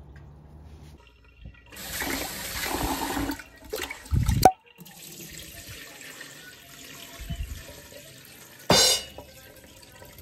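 Water pouring and splashing into a stainless steel sink as cloudy rinse water is drained off rice from a pot. The water is loudest in a rush near the start and then runs more quietly, with a low thump about four seconds in and a brief loud splash near the end.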